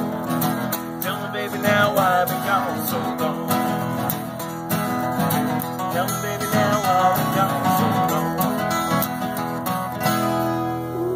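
Two acoustic guitars strumming and picking together in an instrumental passage, with no singing.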